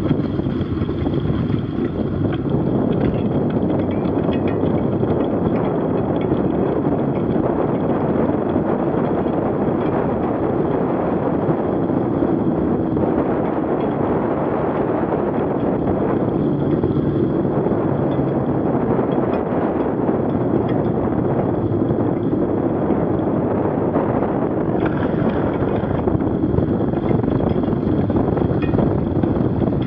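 Steady rushing of wind on the microphone, mixed with the knobby bicycle tyre rolling over a slushy, icy road surface while riding.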